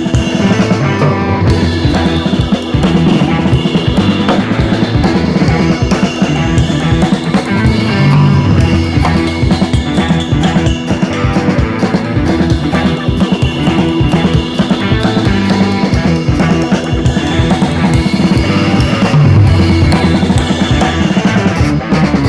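Background music: an instrumental stretch with a steady drum-kit beat and no vocals.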